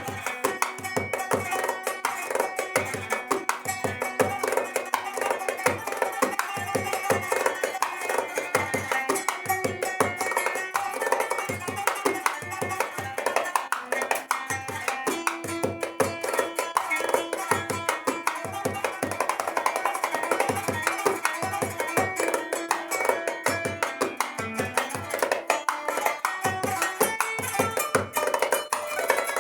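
Kanun and darbuka playing an improvisation together: rapid plucked zither runs over a steady pattern of goblet-drum strokes.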